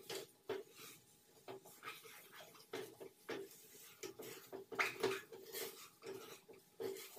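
A wooden spoon stirs thick, nearly set pumpkin paste, scraping the ridged bottom of a red enamelled pot. Each stroke gives a short squeaky rasp, irregularly about one or two a second.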